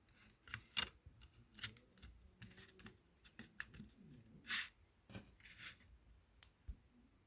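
Handling of a CD and its plastic packaging: an irregular run of light clicks, crinkles and short scrapes.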